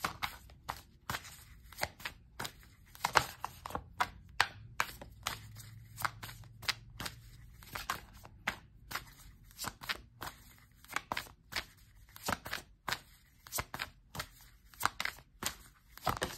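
A deck of oracle cards being shuffled by hand: irregular crisp clicks and slaps of the cards, a few a second.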